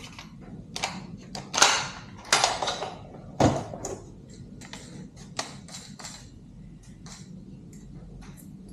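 Drill bits and a drill being handled while a smaller bit is picked out for a pilot hole: a string of irregular metallic clicks, knocks and rattles, the loudest in the first few seconds, fainter and sparser after.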